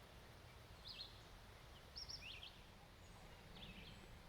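Faint birdsong: short, quick high chirps and trills that come roughly once a second, over a low steady outdoor rumble.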